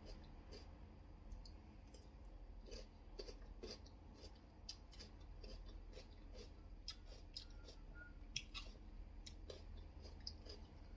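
Someone chewing food: faint, irregular mouth clicks and crunches, typical of eating raw vegetables at a mukbang microphone, over a low steady hum.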